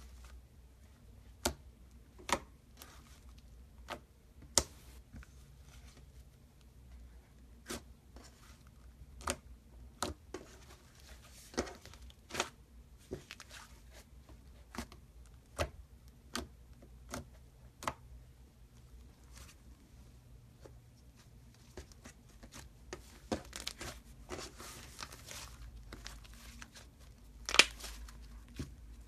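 Green slime squeezed and stretched by hand, giving sharp sticky pops and clicks every second or so. Between them come stretches of softer crackling, and the loudest pop comes near the end.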